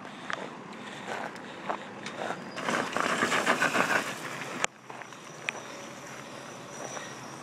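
Gravel crunching and scattering under a mini dirt bike's tyres as it pulls away, loudest for about two seconds midway, with a sharp click just after.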